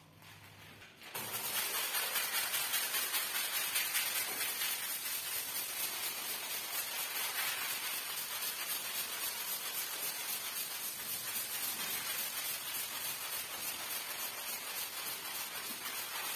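Stiff push broom scrubbing a soapy, wet rug: a steady run of quick scrubbing strokes that starts suddenly about a second in.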